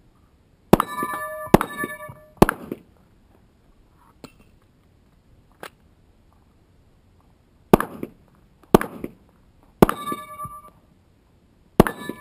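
Handgun shots at steel plate targets, most followed by the ringing clang of a struck plate: three quick shots about a second apart, a pause of about five seconds with a couple of faint clicks, then four more shots about a second apart.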